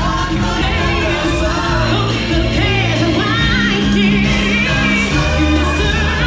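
Live stage-show music: singers holding long notes with vibrato over a full band with steady bass.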